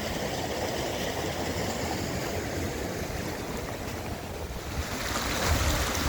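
Rain-swollen farm canal water rushing steadily, with wind buffeting the microphone; the rush grows louder and brighter about five seconds in.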